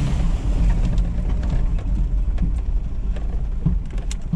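Inside the cabin of a Toyota Land Cruiser KZJ78 with its 3.0 turbo-diesel 1KZ-TE engine, driving off-road: a steady deep engine and road rumble with scattered sharp clicks and knocks of the body and gear jolting over the rough track.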